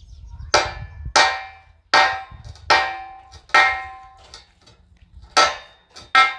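A series of about eight sharp, ringing strikes at an uneven pace, with a pause in the middle and two close together near the end: a hard object striking something resonant, such as metal.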